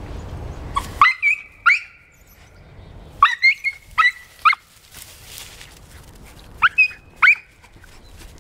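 A small dog yipping and whining, with high-pitched short yelps in three quick bursts of three or four, straining on its leash.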